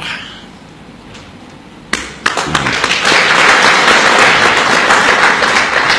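Audience applauding: the clapping starts about two seconds in and swells into steady, dense applause.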